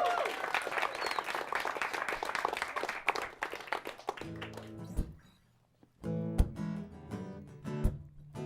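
Applause fading away over the first few seconds, then an acoustic guitar strumming chords, with a short pause before the strumming picks up again.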